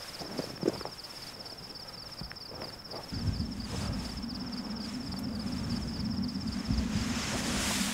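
Insects chirring in a steady, fast-pulsed high trill. A low steady drone comes in about three seconds in and grows slightly louder, with a few faint knocks near the start.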